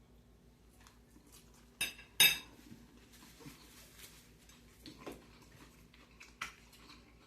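Cutlery clinking against a dish during a meal: two sharp clinks about two seconds in, then a few fainter taps later.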